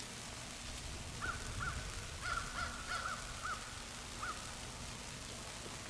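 Birds calling: a run of about nine short, rising-and-falling calls over about three seconds, some overlapping, starting about a second in.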